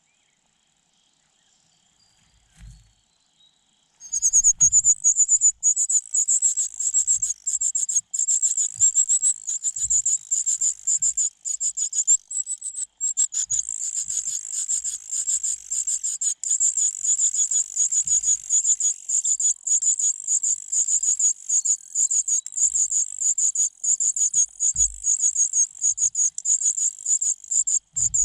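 Nestling birds begging, a rapid, continuous, high-pitched chirping that starts suddenly about four seconds in, with a few faint soft thumps from movement in the nest.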